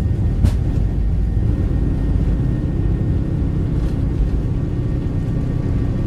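Airliner cabin noise: a steady low rumble of engines and airflow, with a light click about half a second in.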